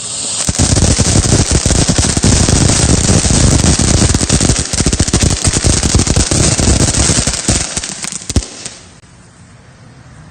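Consumer firework going off in a dense, machine-gun-like run of rapid cracks and bangs for about eight seconds, ending in one last sharp crack and a brief fading hiss.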